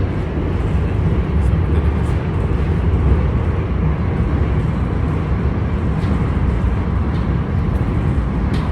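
Train running along the track: a steady low rumble with a few faint clicks.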